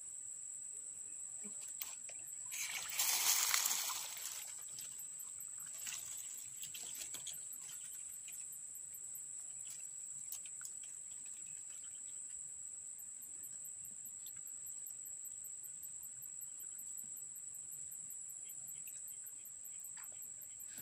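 Insects calling with a steady high-pitched drone and a faint rapid pulsing above it. About three seconds in, a louder burst of noise lasts a second or two.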